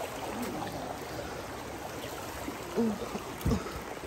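Shallow rocky stream running steadily, with a brief low thump about three and a half seconds in.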